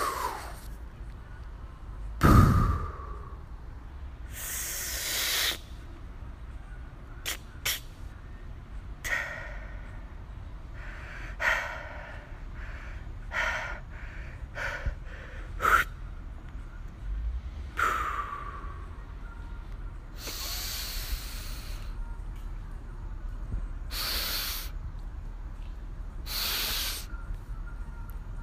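Sparse sound-design track of breath-like gasps and hisses, whooshes and a few sharp clicks at irregular intervals, with a falling sweep ending in a deep hit about two seconds in, the loudest moment.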